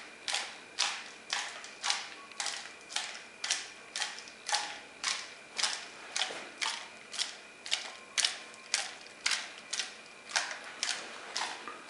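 Small rock pieces rattling in a screw-capped plastic specimen cup of ethanol as it is shaken by hand for surface sterilisation, in a steady rhythm of about two sharp clicks a second.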